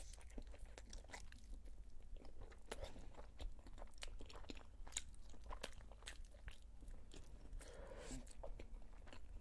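Close-miked bite into a khinkali dough knot, then chewing it: wet mouth clicks and small crunches at an uneven pace. A brief closed-mouth hum comes near the end.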